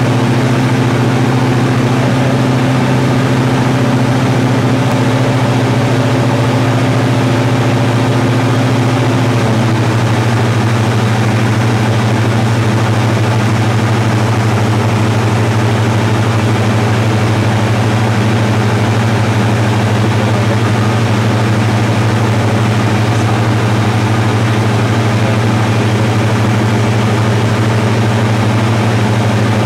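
Cessna 172's diesel aero engine and propeller running steadily in flight, a loud low drone; about nine seconds in the pitch steps down slightly and then holds.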